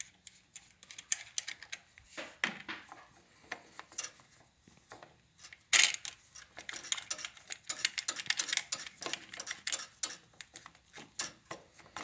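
Plastic and metal clicking, scraping and rattling as the black intake adapter on a Briggs & Stratton carburetor is twisted and worked loose by hand. The loudest is a sharp clatter about halfway through, followed by a dense run of small clicks.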